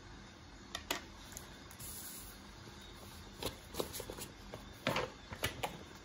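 Sheets of printed paper handled and turned over on a desk: a couple of light clicks about a second in, then a cluster of crisp paper rustles in the second half, over a faint steady background hiss.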